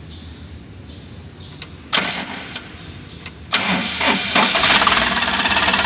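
Suzuki Super Carry engine, fitted with a new water pump, being started. A short burst of cranking about two seconds in, then the starter cranks again a second and a half later and the engine catches and settles into steady running.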